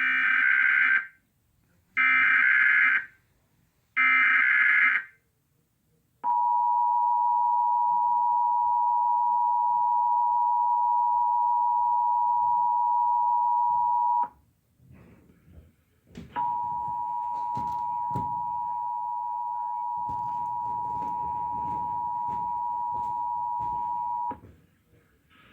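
Emergency Alert System SAME header: three one-second bursts of digital data tones, each about a second apart, followed by the EAS two-tone attention signal held steady for about eight seconds. After a short gap with some noise, the two-tone attention signal sounds again for about eight seconds, a little quieter and over background noise.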